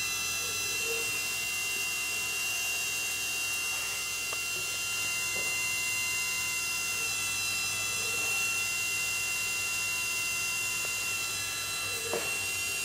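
Bench-top enamel wire stripping machine running at steady high speed: its electric motor and spinning scraper head make a constant high whine.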